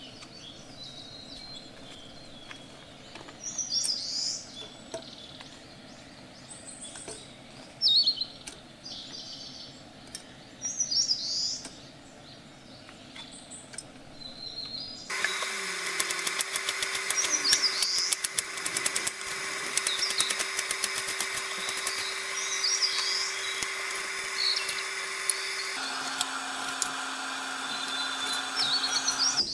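Birds chirping now and then over a steady background. About halfway through, a steady hum with many overtones starts abruptly, and near the end it drops to a lower pitch; a run of small clicks follows soon after it starts.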